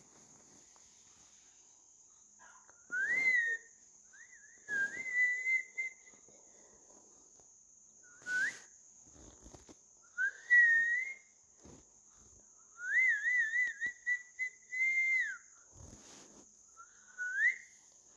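Ringneck parakeet whistling in about six short phrases of clear tones that glide upward and waver. One phrase, about two-thirds of the way through, is a quick up-and-down trill lasting a couple of seconds. A faint steady high-pitched tone runs underneath.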